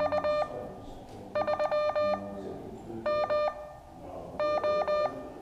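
Morse code (CW) tone keying out a call sign: a single steady-pitched beep switched on and off in dots and dashes, in four short groups about a second apart, one group per character.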